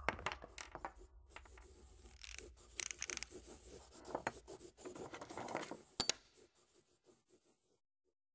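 Scratchy scribbling on paper: quick, irregular scratching strokes with small sharp ticks among them. It fades out about a second before the end.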